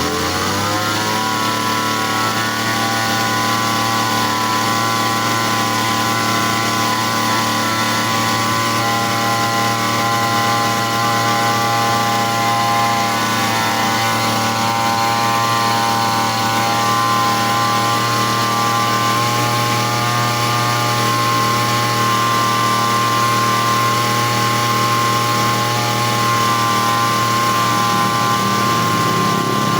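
Small grass-cutter engine revving up in the first second, then running steadily at high speed. It keeps running warm without stalling during a test run after a repair for dying when hot.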